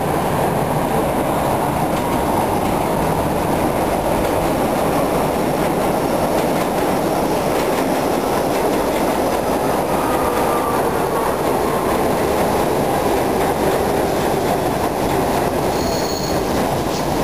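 R62A subway train on the 7 line running through the station on the express track without stopping: a loud, steady rumble of wheels on rail as the cars pass close by.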